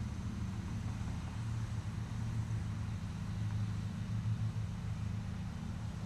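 Riding lawn mower engine running steadily while mowing grass, a low even drone.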